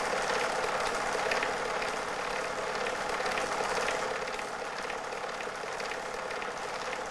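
Super 8 film projector running: a steady mechanical whirr with a rapid, even clatter of the film transport.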